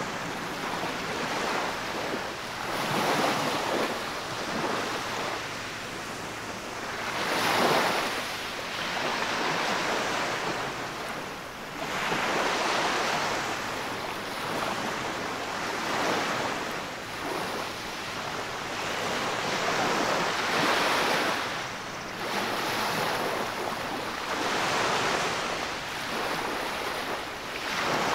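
Small waves breaking on a sandy beach and their wash running up and back over the sand, the sound swelling and fading every four to five seconds.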